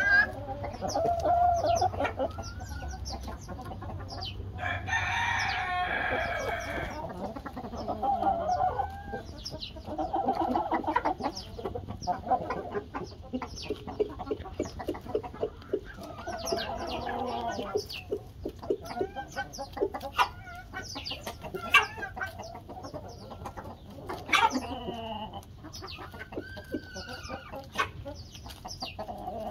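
A flock of Light Brahma chickens clucking and calling as they feed, short pitched calls one after another with a longer, denser call about five seconds in.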